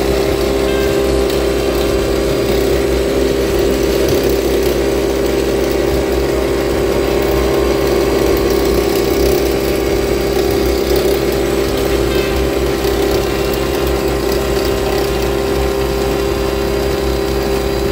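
Nespresso Vertuo coffee machine brewing, spinning the capsule while coffee is dispensed. It makes a loud, steady mechanical hum with one strong constant tone.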